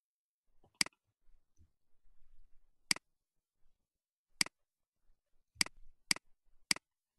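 Computer mouse button clicking: six sharp, separate clicks at uneven spacing, the last three closer together, about half a second apart, near the end.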